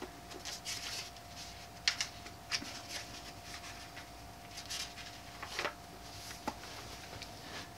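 Pages of a hardback book being handled and turned: a series of soft paper rustles and flicks, the sharpest about two seconds in, over a faint steady hum.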